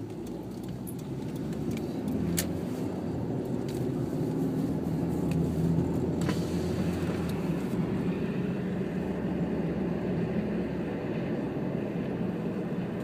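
Car interior noise while driving: steady engine and tyre rumble, growing louder over the first few seconds, with a few light clicks.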